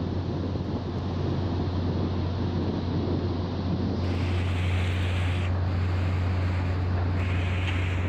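Wind buffeting the microphone and sea water rushing past the hulls of two coast guard ships running side by side, over the steady low hum of the ship's engines. A higher hiss of rushing water comes in about halfway through, drops out briefly, then returns.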